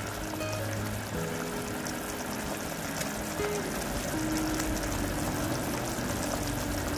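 Spiced oil-and-chilli pickle gravy bubbling at the boil in a clay pot, a steady crackle of small pops, under soft background music.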